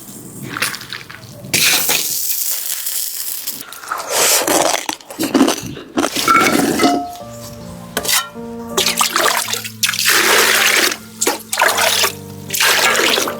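Water splashing and pouring in irregular bursts, over background music whose held notes come in about halfway through.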